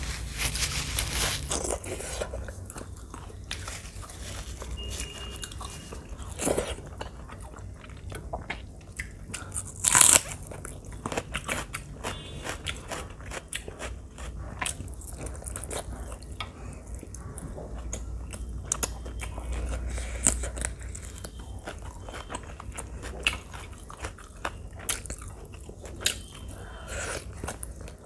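Close-miked eating sounds: wet chewing, lip smacking and crunching as rice and chicken curry are eaten by hand, with one sharp, loud crunch about ten seconds in.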